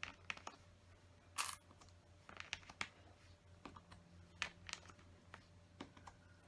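Plastic LEGO bricks clicking and clattering faintly as pieces are picked up and pressed into place, in irregular sharp clicks, with a short rustle about a second and a half in.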